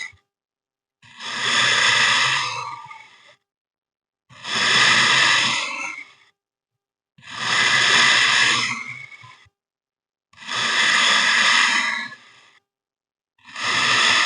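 Kinetic sand being cut, a soft crumbly swishing repeated about every three seconds. Each cut lasts about two seconds, with silence between.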